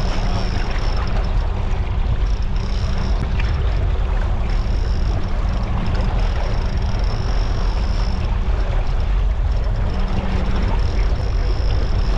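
Boat engine running steadily with a constant low hum, under a wash of wind and water noise. A high thin whine cuts in and out every second or two.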